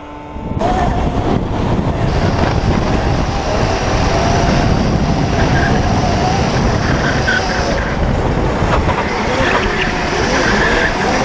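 Electric drift karts sliding on asphalt: tyres squealing in wavering tones over heavy road and wind rush on the onboard microphone, with a steady high motor whine in the middle stretch. The sound starts abruptly about half a second in.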